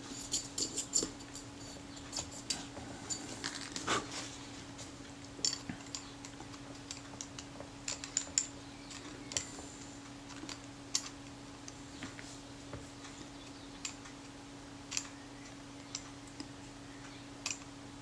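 Sparse small clicks and scrapes of the brass threaded parts of a Retina-Tele-Xenar 135mm f/4 lens being handled and fitted together, with a quick run of toothpick scraping in the first second. A faint steady hum sits underneath.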